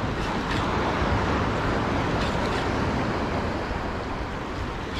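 Steady wind noise on the microphone over the wash of surf, with a few faint clicks.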